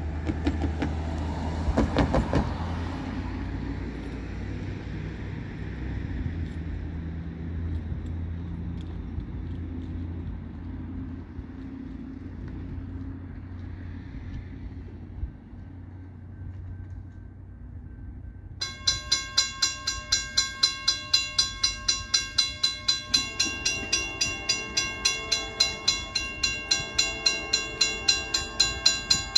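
A Norfolk Southern diesel freight train running by with a steady low rumble. About two-thirds through, a loud rapid ringing starts suddenly, repeating about three times a second.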